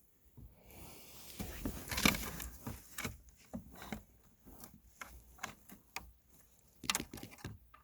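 Scattered light clicks and knocks of a car's shifter assembly and console parts being handled and shifted into place, the loudest knock about two seconds in.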